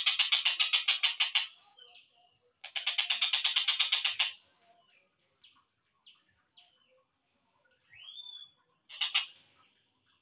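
Tengkek buto (collared kingfisher) calling: two fast, evenly repeated chattering trains about a second and a half each, then a few scattered short chirps, a single rising whistle and a brief final burst near the end.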